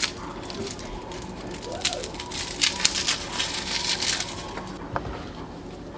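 Papery garlic skins crackling and crinkling as a head of garlic is pulled apart into cloves by hand, in a quick flurry of dry crackles in the middle, with a single click a little later.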